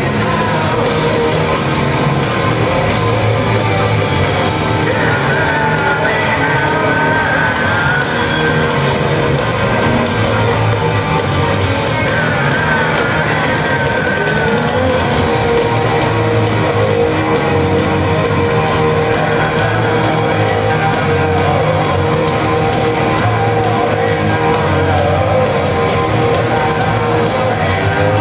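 Rock band playing live at full volume with electric guitar, drums and a singer, heard from among the audience in a large arena hall.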